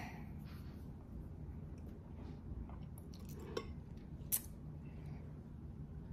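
A few soft clicks and taps of handling things at a table over a low steady room hum, with one sharper click about four seconds in.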